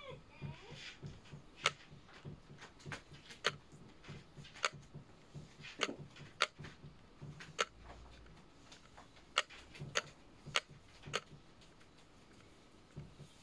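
Sharp clicks and taps at uneven intervals, roughly one a second, over a faint patter.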